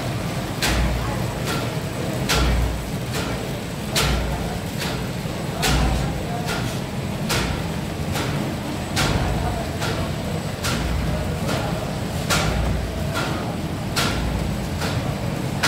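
Paper bag making machinery running with a steady low hum, a sharp mechanical clack about every 0.8 seconds and a heavier thud about every 1.7 seconds.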